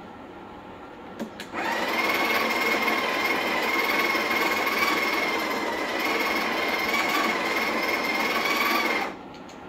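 Espresso machine's built-in coffee grinder grinding the second 9-gram half of an 18-gram double dose into the portafilter: two light clicks about a second in, then a steady motor whine for about seven and a half seconds that cuts off sharply near the end.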